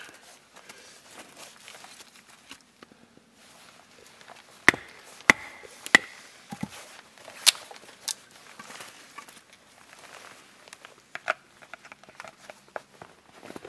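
Small hatchet chopping and splitting sticks on a wooden block: three sharp strikes in quick succession about five seconds in, then a few more spaced-out blows, with quieter knocks and wood handling between.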